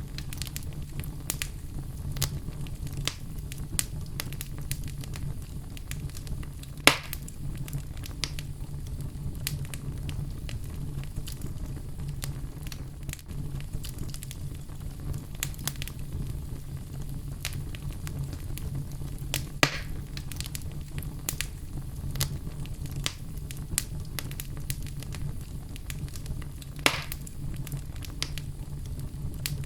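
Wood fire burning with a steady low rumble, scattered small crackles throughout and three louder pops.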